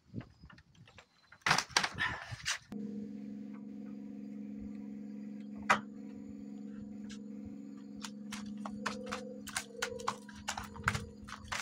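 A steady hum of a few held low tones starts suddenly about three seconds in. Over it come irregular sharp slaps and taps from freshly caught fish flapping on the wooden dock boards.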